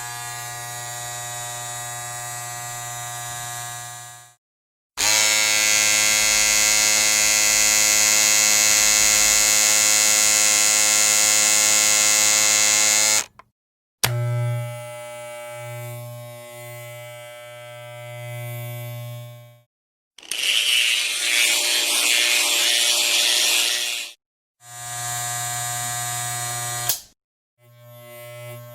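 A series of separate electric buzzing sound effects, each a few seconds long with short silences between: steady low buzzes, one that pulses on and off about once a second, and a rougher, hissy burst near the middle.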